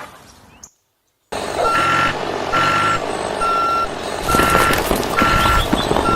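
Vehicle reversing alarm beeping steadily, about one beep a second, over a running engine; it starts suddenly after a second of silence.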